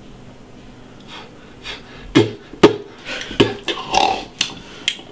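A man breathing hard in a quick run of short, sharp puffs and sniffs, starting about two seconds in, as he blows out e-cigarette vapour.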